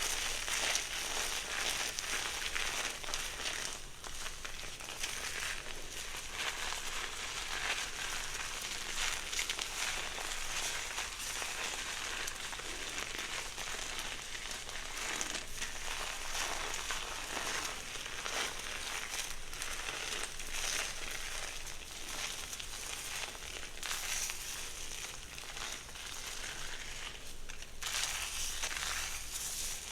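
Close-miked hair being worked by hand and brush: a steady, crackly rustle of many fine strokes through the hair.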